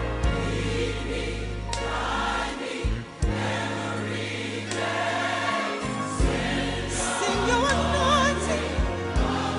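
Gospel choir music: a choir singing with vibrato over bass and percussion.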